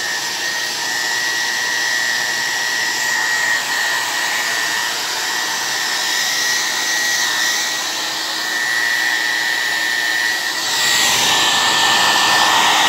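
Electric blow dryer running steadily: a rushing blow of air with a thin, steady high whine. Near the end the rush grows louder and fuller.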